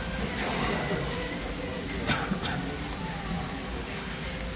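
Chicken, cabbage and mala sauce sizzling on a hot griddle pan as they are stir-fried with a spatula. Sharp scrapes or knocks of the spatula against the pan come about two seconds in.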